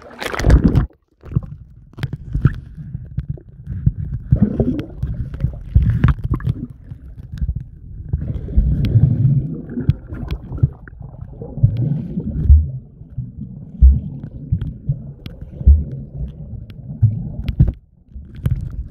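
Muffled low rumbling and scattered knocks of water sloshing and rubbing against a phone microphone handled at or in hot-spring pool water, cutting out briefly twice.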